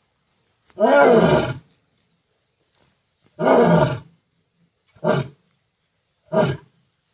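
Male lion roaring: two long roars, each rising then falling in pitch, about two and a half seconds apart, followed by two shorter grunts, the closing part of a roaring bout.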